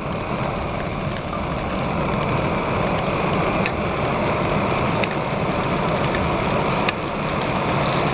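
Camp stove burner running steadily under a buttered frying pan, a constant rushing hiss with a few faint sharp pops from the heating butter in the second half.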